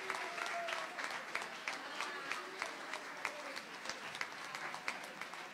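Audience applauding, with sharp individual claps standing out; the applause fades a little toward the end.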